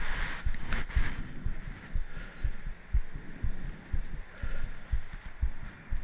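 Low, soft thumps about twice a second right at a body-worn action camera: handling noise as a spinning or casting reel is cranked to retrieve a just-pitched lure.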